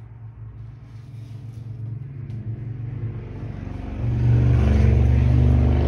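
A motor engine running with a steady pitch, growing steadily louder and becoming a loud drone about four seconds in.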